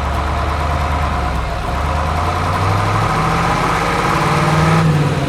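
Vehicle engine running, its pitch stepping up twice in the second half as it revs, then dropping away near the end.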